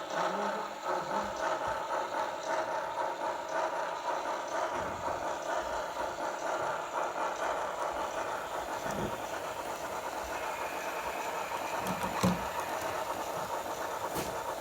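HO-scale model train running on its track: a steady whirring hum, with a single sharp click about twelve seconds in.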